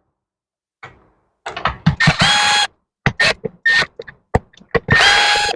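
Cordless drill/driver running in two short bursts of about half a second each, a steady motor whine, backing screws out of a chainsaw's housing, with sharp clicks and knocks of handling the saw and tool in between.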